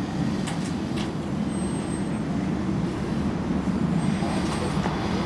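Steady low engine rumble of an idling vehicle, with a few faint light knocks.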